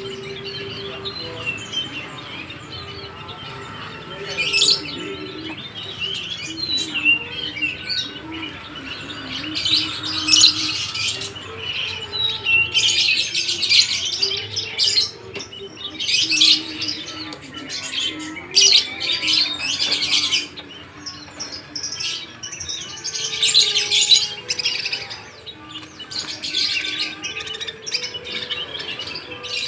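Many small songbirds in crowded market cages chirping and twittering at once, a dense overlapping chatter that swells and eases in waves.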